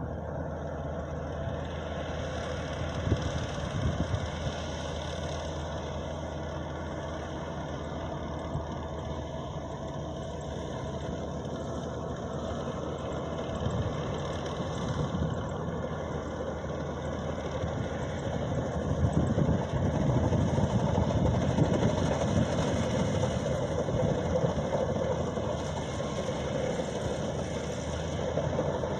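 Maxxi Bimo 102 Top combine harvester's engine running steadily, getting louder about two-thirds of the way through.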